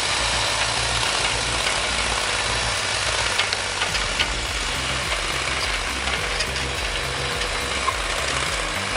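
Engine running steadily under a constant broad hiss, with a few light clicks scattered through.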